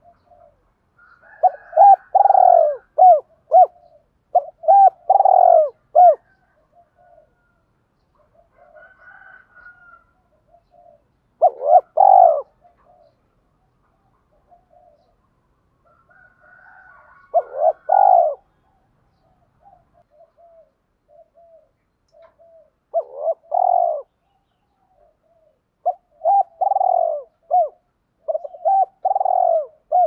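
Spotted dove cooing: loud phrases of several coos each, repeated several seconds apart, with softer short notes between the phrases.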